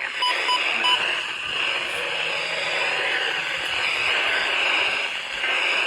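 Weather radio receiver hissing with static between broadcast messages, with three short beeps in quick succession right at the start.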